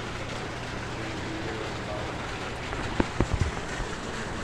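Heavy rain pouring steadily in a thunderstorm, with a short cluster of sharp knocks about three seconds in.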